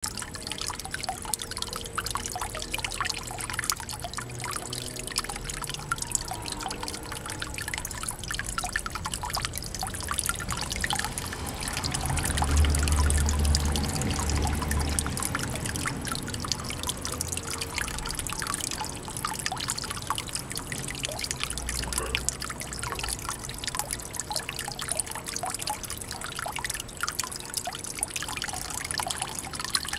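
Water falling from a PVC pipe outlet into a small garden pond, trickling and splashing steadily with many small splashes. A low rumble swells briefly near the middle.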